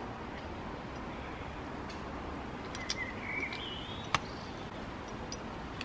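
Quiet outdoor background with a few sharp clicks of plastic game pieces being set down on a table, the loudest about four seconds in. A bird chirps briefly about three seconds in.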